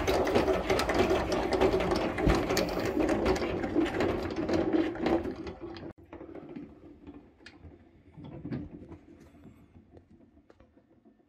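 Electric honey extractor running, its motor driving the basket of honey frames round inside the stainless drum with a steady mechanical hum. The sound drops much quieter about halfway through and fades toward the end.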